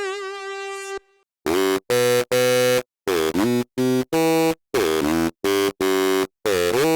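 MOK Miniraze wave-slicing software synthesizer playing a patch. A held note with vibrato stops about a second in. After a brief gap comes a rhythmic sequence of short, bright, hard-gated notes, about two a second, some starting with a quick downward pitch swoop.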